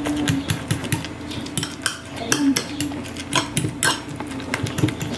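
A metal fork clinking and scraping against a cut-glass bowl as it mashes chopped boiled eggs, in quick irregular clicks.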